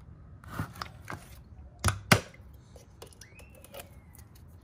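Hands handling a washer fluid jug and the washer reservoir cap: a few plastic clicks and knocks, the two loudest close together about two seconds in, then lighter ticks.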